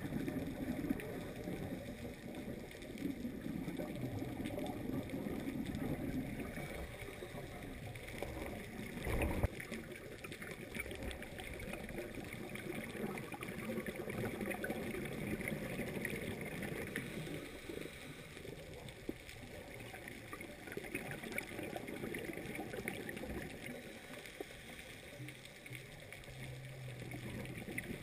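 Underwater sound of a scuba dive, muffled through the camera's waterproof housing: gurgling and rumble of exhaled regulator bubbles swelling and fading, over fine crackling. One sharp knock about nine seconds in.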